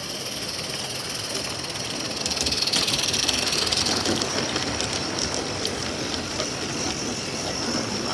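A 16mm-scale narrow gauge model train running past close by on the track. Its sound swells and is loudest about two to four seconds in, with a few light clicks afterwards.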